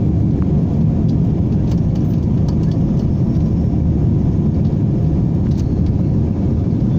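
Passenger airliner's engines and airflow during takeoff, a loud, steady low rumble.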